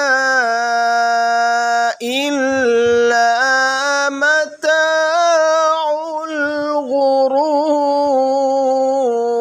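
A single male voice reciting the Quran in a slow, melodic style, drawing out long held notes that glide between pitches, with short pauses for breath about two seconds and four and a half seconds in.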